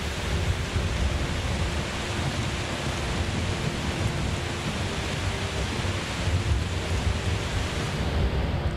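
Thunderstorm: heavy rain drumming steadily on the roof of a VW bus, with a deep rumble of thunder underneath.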